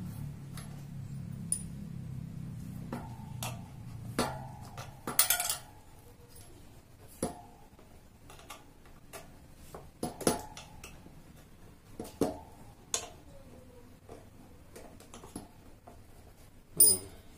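Scattered clinks and knocks of a bicycle wheel's metal rim and spokes as a Kenda folding-bike tyre is worked onto the rim by hand, some knocks ringing briefly. The loudest knocks come about five seconds in and near the end.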